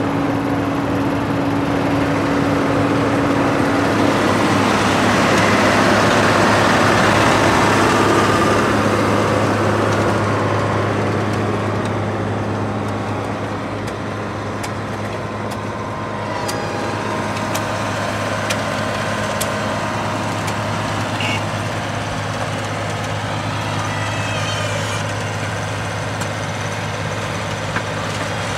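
Diesel engines of road-paving machinery running steadily at a low hum. The sound swells louder for a few seconds about five seconds in, and light clicks and scrapes come through in the second half.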